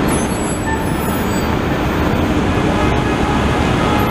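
Loud, steady traffic noise of a busy city street, with vehicles running past.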